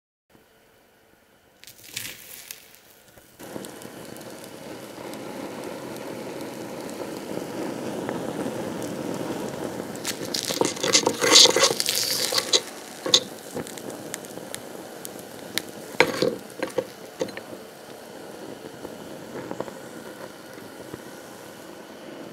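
Glitter burning around a red-hot nickel ball in a stainless steel bowl, with a steady sizzle and crackle that builds over the first ten seconds. Around 10 to 13 seconds in, and again near 16 seconds, metal tongs clink and scrape against the bowl as the ball is dug out of the glitter.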